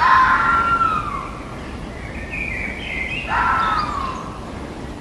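Three pitched animal calls, the first and last falling in pitch, the middle one higher, over a steady background noise.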